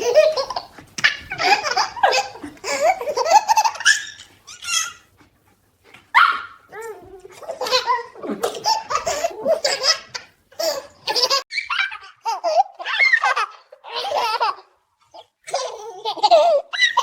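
A baby laughing in repeated high-pitched bursts of giggles, with short breaks between them.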